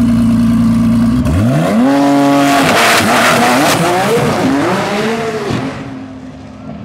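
Nissan GT-R drag car's twin-turbo V6 launching off the line: it holds a steady pitch while staged, then a little over a second in the revs climb sharply as it pulls away. The pitch rises and drops through several quick upshifts and fades as the car runs off down the track.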